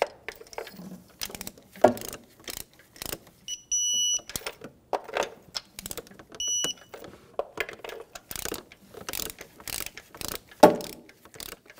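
Digital torque wrench ratcheting in quick metal clicks while tightening spark plugs, with its electronic beep sounding twice, a longer beep about three and a half seconds in and a short one around six and a half seconds, as it reaches the 11 ft-lb set torque. Sharp metal knocks of the tool come through as well, the loudest about ten and a half seconds in.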